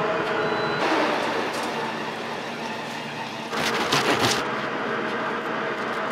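Serrated bread knife sawing through the crust of a baked bagel: a short crackly rasp a little past the middle, over a steady background hum.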